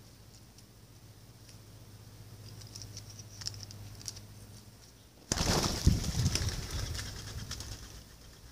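Birds taking off from the ground: a sudden burst of loud wing flapping about five seconds in, fading over a couple of seconds. It follows a few light taps of a beak pecking seed on paving stones.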